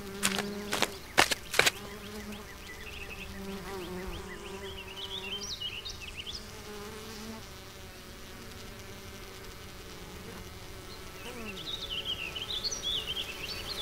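Sound effect of bees buzzing, a steady low hum. Several sharp taps, the loudest sounds, come in the first two seconds, and high twittering chirps come and go over the hum.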